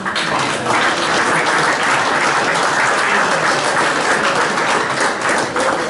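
A group of people clapping, steady applause that eases off near the end.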